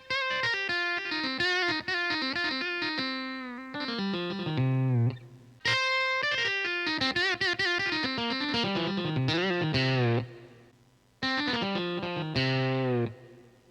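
Yamaha arranger keyboard's electric guitar voice playing a solo melody, with notes bending and wavering. The phrase breaks off and starts again about five and a half seconds in, and pauses briefly near eleven seconds.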